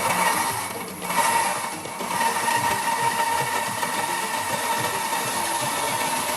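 Electric power tool motor running with a steady whine, dipping briefly about a second in and then running evenly.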